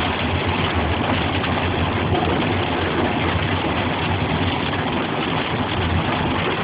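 Car driving on a flooded, rain-soaked road, heard from inside the cabin: a steady mix of low engine hum with tyre and water noise, with no distinct events.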